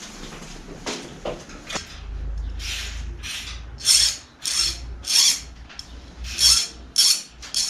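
Hand file scraping in short, repeated strokes, about two a second, starting a couple of seconds in with a brief pause partway through; a few light knocks come before the filing begins.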